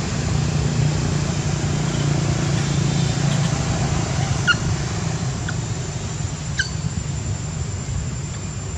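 Steady low rumble and hum of background noise, with three brief high chirps around the middle.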